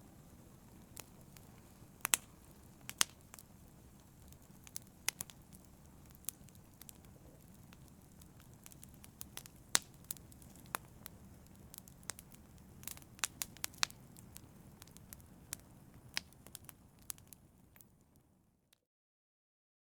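Wood fire in a fireplace crackling, with frequent sharp pops and snaps over a low steady rumble of the flames. The sound fades out shortly before the end.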